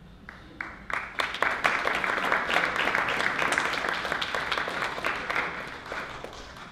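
Audience applauding: a few scattered claps, then a dense round of clapping within about a second, thinning out near the end.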